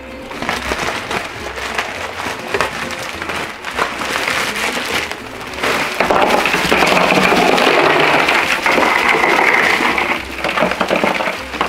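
Ice cubes poured from a plastic bag into a plastic cooler over meat: a dense clattering rush that starts about six seconds in and lasts about four seconds, with scattered lighter clicks and rattles before and after.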